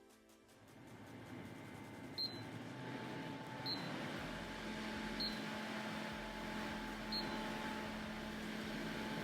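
Small USB desktop air-cooler fan running faintly with a steady airy whir. Short high chirps come about every one and a half seconds, and a low hum joins about four seconds in.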